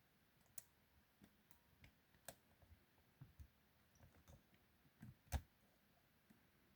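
Faint, irregular clicks of a lock pick and tension tool working the pins of a 40mm Mi-Lock padlock, with one louder click about five seconds in.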